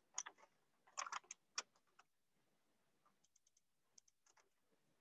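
Faint clicks of a computer keyboard and mouse: a few quick taps in small clusters in the first second and a half, then softer ones in the middle.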